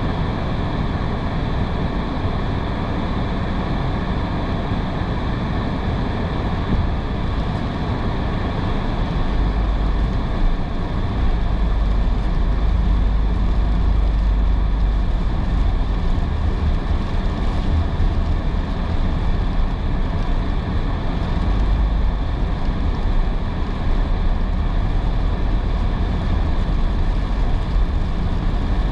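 Steady road noise heard from inside a car driving on wet roads: tyre hiss and the low rumble of the car, which grows louder about nine seconds in.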